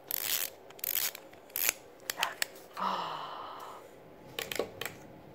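Clockwork wind-up chick toy being wound, its key turning with several short ratcheting clicks, then a brief whirring buzz about three seconds in and a couple more clicks near the end.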